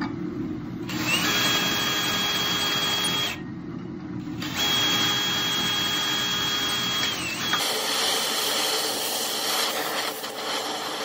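Cordless drill boring through steel plate: two runs of steady motor whine with a short pause between, the second slowing as the bit breaks through. After that, the steady crackling hiss of an electric welding arc.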